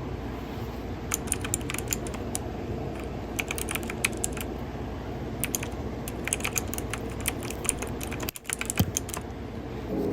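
Light sharp clicks and taps in several short clusters over a steady low hiss, from hands handling the AirPods packaging.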